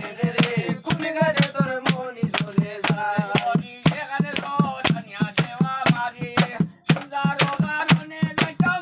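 Folk chant sung by a voice over a fast, even beat of sharp rattle-like percussive strikes, about four or five a second.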